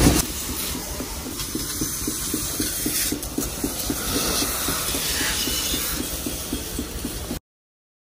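A machine running: a steady hiss with a regular pulse about four to five times a second, cutting off abruptly near the end.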